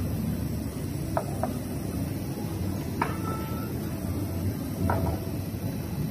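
Tableware clinking: four short, ringing clicks, a close pair about a second in, one at three seconds and one near five, over a steady low hum of a dining room.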